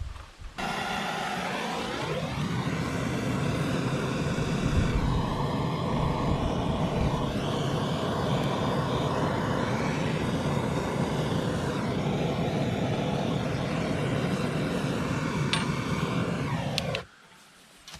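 An engine revs up in its first couple of seconds, then runs steadily and loudly, starting and stopping abruptly.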